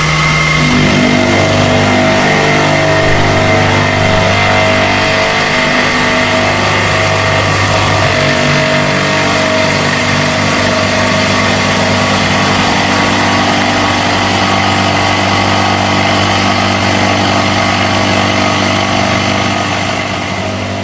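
A 1.5-inch face mill cutting full width, 50 thousandths deep into a 1018 steel plate at 1500 RPM and 10 inches per minute. It makes a loud, steady cutting noise with a low hum and a high whine in it, easing off near the end.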